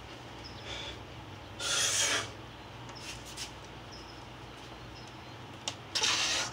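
Two hard, forceful breaths, about two seconds in and again near the end, from a man straining to bend a steel bar by hand.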